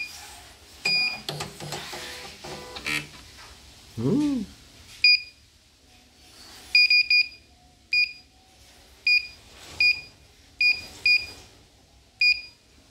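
Short, identical beeps from a CNY embroidery machine's control-panel keypad as its buttons are pressed: about ten beeps at irregular intervals, some in quick succession. A few seconds of clicks and mechanical noise come first.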